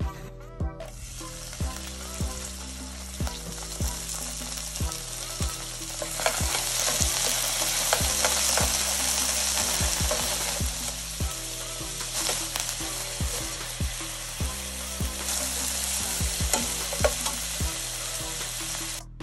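Slices of beef sizzling in hot oil in a nonstick frying pan over medium gas heat, stirred with wooden chopsticks. The sizzle starts about a second in, is loudest in the middle and cuts off suddenly near the end.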